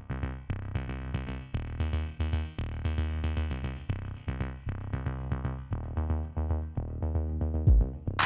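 Electronic background music with a steady drum-machine beat and deep bass. Near the end a sudden heavy hit cuts in.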